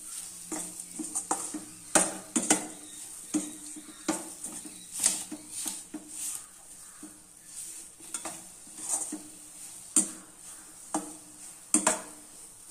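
A spatula stirring and scraping in a cooking pan with irregular knocks about once a second, as dates are mixed in hot ghee, with a faint sizzle underneath.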